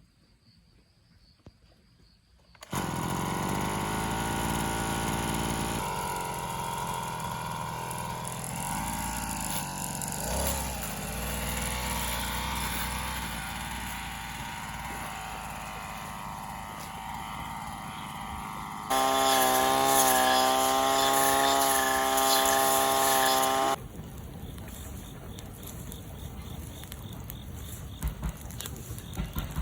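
Small engine of a brush cutter running, cutting in about three seconds in. It gets louder with a steady high whine for about five seconds past the middle, then drops back to a quieter running sound.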